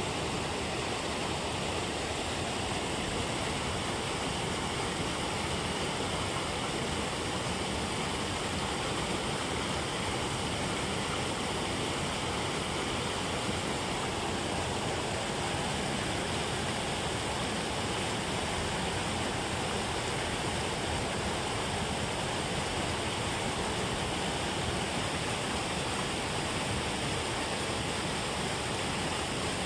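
Water pouring over a low concrete weir and churning in the pool below: a steady rush with no breaks.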